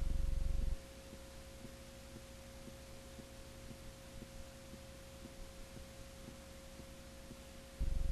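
Electrical hum and hiss with a faint steady tone. A loud low buzz drops away under a second in and returns near the end.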